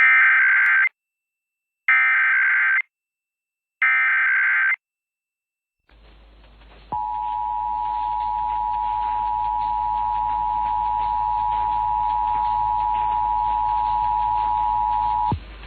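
Emergency Alert System Required Monthly Test tones: three one-second bursts of the SAME digital header's warbling data tones, about a second apart. After a pause, a faint hiss and hum comes in, then the two-tone attention signal (853 and 960 Hz) sounds steadily for about eight seconds and cuts off.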